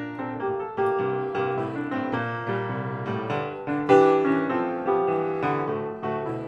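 Piano music: single notes and chords struck a few times a second, each ringing on and fading.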